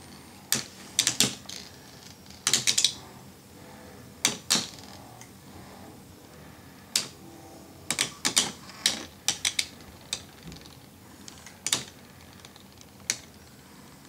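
Metal Beyblade Metal Fusion spinning tops clashing as they spin in a plastic stadium. The sharp clacks come singly and in quick clusters of two to four, scattered irregularly.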